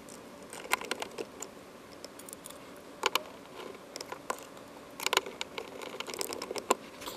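Scattered small clicks and short scrapes of a screwdriver and bare wire ends being worked at a boat's fuse panel, as the wires are screwed down under the terminal screws.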